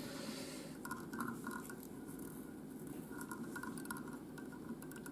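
Faint scratching and light ticking of hand work at a fly-tying vise, as a hackle is wound onto a tube fly with hackle pliers.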